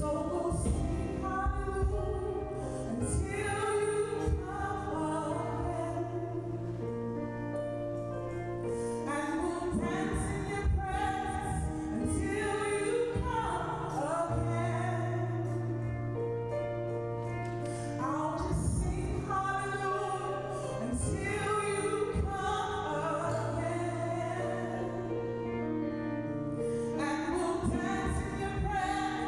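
Church praise band playing a song with a singer: a wavering sung melody over long-held bass notes that change every few seconds.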